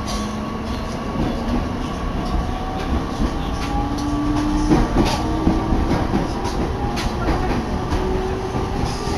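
Electric train heard from inside the carriage as it pulls away from a station: a steady running rumble with a motor whine slowly rising in pitch, and a few rail-joint clacks around the middle.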